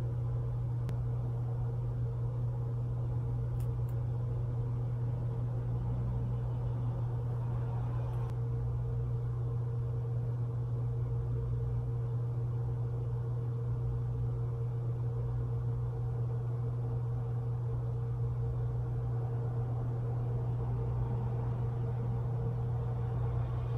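A steady low hum with a fainter, higher steady tone above it, unchanging in level, like a fan or other small machine running in the room.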